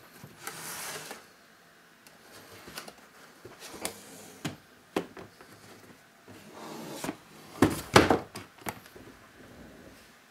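Cardboard statue box being handled on a desk: sliding and rubbing against the surface, with several sharp knocks, the loudest a pair of thumps about eight seconds in.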